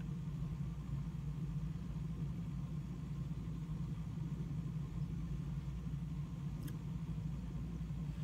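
Steady low background rumble, room tone with no distinct source, and a faint click about two-thirds of the way through.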